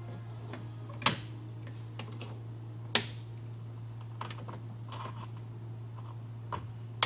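Sharp clicks and light taps from hands working speaker wire and plastic fittings in a truck's door frame: three loud clicks, about 1 s and 3 s in and again at the end, with softer taps between. A steady low hum runs underneath.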